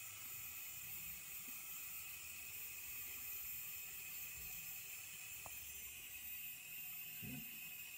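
Small electric spindle-cooling pump running faintly: a steady low hum under a hiss as it pulls antifreeze up through the cooling lines, still priming with air in them. A brief soft bump about seven seconds in.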